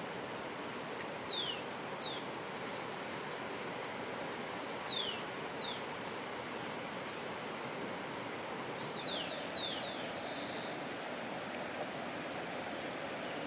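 A bird singing: a short level whistle followed by two quick descending whistles, given twice, then a run of several falling notes about nine seconds in, over a steady rushing background noise.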